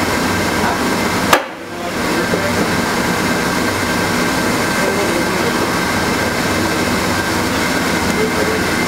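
Hot air welding tools' blowers running steadily in a roofing training shop: a loud, even rushing noise with a steady whine. About a second and a half in, a sharp click is followed by a brief drop in level.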